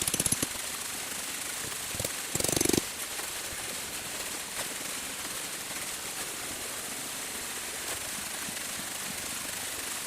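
Steady hiss of flowing water, with two short bursts of rapid rattling: one right at the start and one about two and a half seconds in.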